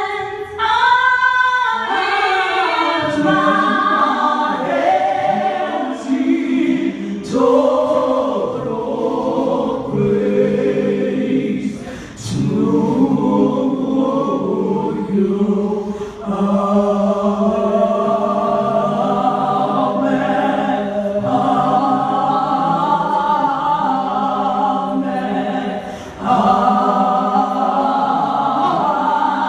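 A group of singers singing a worship song together in harmony, in phrases with short breaths between them.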